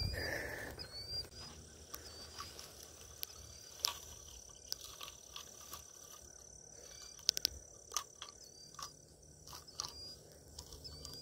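Quiet rural outdoor ambience: a short high chirp with a rising hook, repeated about once a second. A thin steady high whine runs through the middle, and there are a few sharp clicks.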